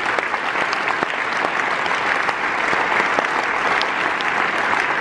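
A large audience applauding, steady dense clapping throughout.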